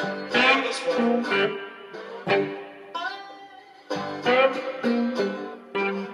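Slide guitar playing a blues riff in G, with notes sliding up and down between plucked phrases.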